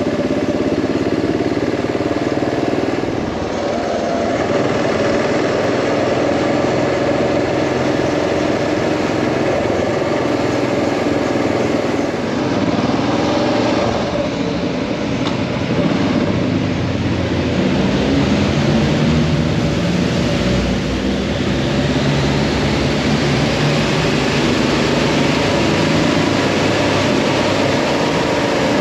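Motorcycle engine running under way, its pitch rising and falling as speed changes, over a steady rush of wind noise.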